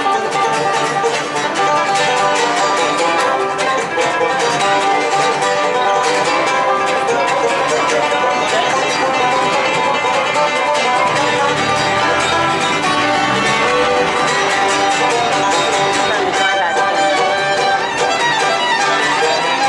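Acoustic guitar, banjo and fiddle playing a bluegrass tune together.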